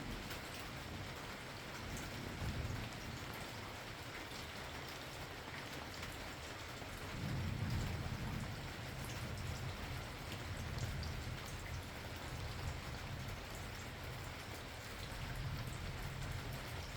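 Steady rain falling, with individual drops heard, and low rumbles of thunder swelling several times, the loudest about seven to eight seconds in.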